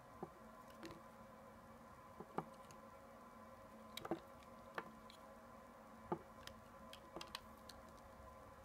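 Soft glycerin soap being cut with a snap-off utility knife blade: about a dozen short, sharp cracks and clicks at irregular intervals, with quiet gaps between them.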